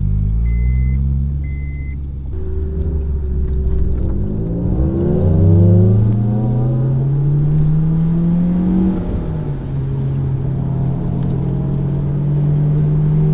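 Honda S2000's four-cylinder engine, freshly built and being broken in, driven gently. It runs low at first, then pulls away with its pitch rising for about four seconds, drops at an upshift about nine seconds in, then settles into a steady cruise. Two short electronic beeps sound in the first two seconds.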